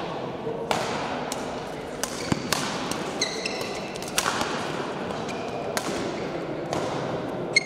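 Badminton rackets striking shuttlecocks: a string of sharp, irregular hits over steady hall noise. Two short high squeaks, likely shoes on the court floor, come about three seconds in and at the end.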